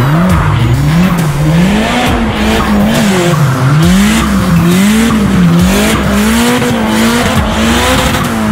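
Nissan Silvia S15 drift car's engine revving up and down about once a second as the throttle is worked through a drift, over steady tyre noise from the sliding wheels.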